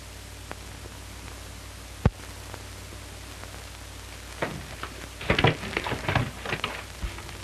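Steady hiss and low hum of an early sound-film soundtrack. A single sharp crack comes about two seconds in, then a flurry of irregular knocks and thumps in the second half.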